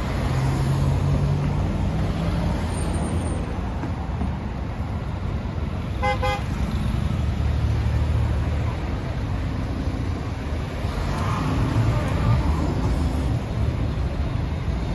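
Street traffic, with car engines running low and steady, and one short car horn toot about six seconds in.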